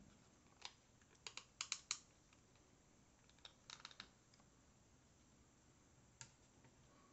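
Faint plastic clicks and taps as a McFarlane Toys Robin action figure's foot is fitted onto its round plastic display base, in a few short runs of quick clicks: repeated attempts to get the figure to stand.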